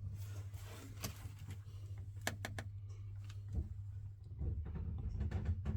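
Repaired Ferroli gas boiler running with a steady low hum, with a few light clicks and knocks. The hum grows louder about four and a half seconds in.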